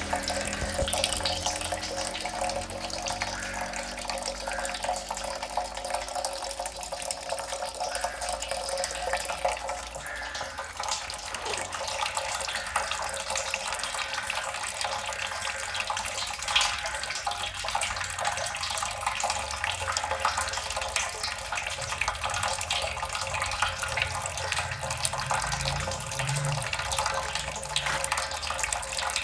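Water dripping steadily: a dense run of small drops over a continuous trickle of water.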